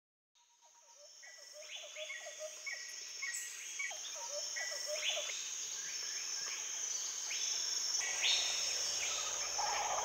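Rainforest ambience fading in over the first few seconds: a steady high insect drone, with birds calling again and again over it.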